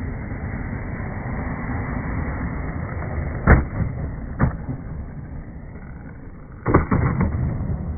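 Skateboard wheels rolling on a concrete bowl, a steady low rumble, with a sharp clack about three and a half seconds in, another a second later, and a quick run of knocks near the end as the board clears the coping and lands on the deck.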